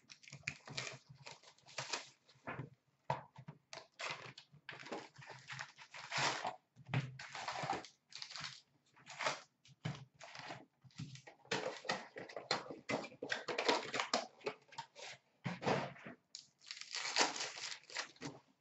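Hockey card packs being torn open, their wrappers crinkling and the cards rustling, in irregular bursts.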